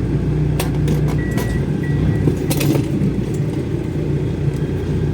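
Off-road 4x4's engine running steadily at low speed, with a few sharp knocks in the first three seconds and two brief high beeps just after a second in.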